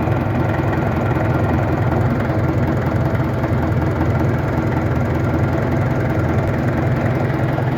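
International BTD6 crawler's BD-264 four-cylinder diesel engine idling steadily.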